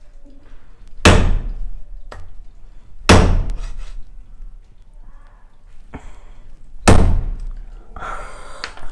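A large kitchen knife chopping into a raw pork leg on a plastic chopping board: three heavy chops, the blade not getting through the bone.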